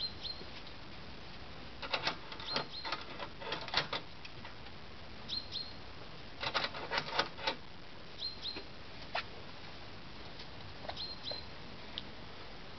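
Sheet-metal roof tile, a solar-panel mount, being handled and set among concrete Frankfurter Pfanne roof tiles: two bursts of quick clattering knocks, about two to four seconds in and about six and a half to seven and a half seconds in, with a few single clicks later. A small bird chirps short high notes every few seconds.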